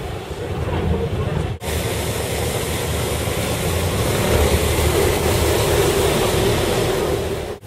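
Boat engines running under way, with water rushing from the wakes. The sound drops out briefly about a second and a half in, and is louder in the second half.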